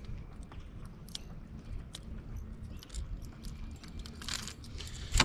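Scattered small clicks, crunches and rustles as a freshly caught largemouth bass is handled on a bass boat's front deck, with a brief hiss about four seconds in and a sharper click near the end, over a steady low rumble.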